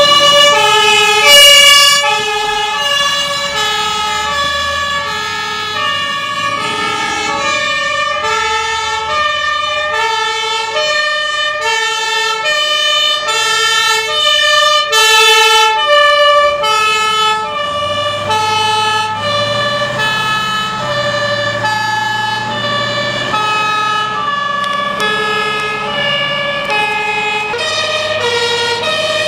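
Two-tone sirens of fire engines setting out on an emergency call, stepping back and forth between a high and a low note. The sirens overlap out of step, the loudest near the start and again about halfway through, with a truck's diesel engine rumbling underneath in the second half.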